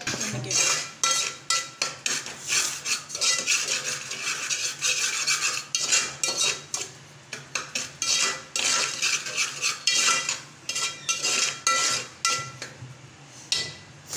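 Metal slotted spoon scraping and stirring dry semolina around the bottom of an aluminium pot, about two strokes a second, with a faint metallic ring. The semolina is being dry-roasted before ghee goes in. The strokes thin out near the end.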